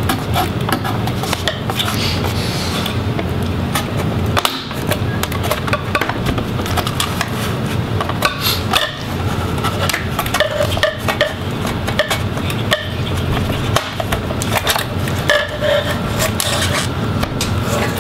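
Laptop display back cover being pried off its bezel with a flat tool: a run of irregular clicks and snaps as the plastic clips let go one after another, with the tool scraping along the seam.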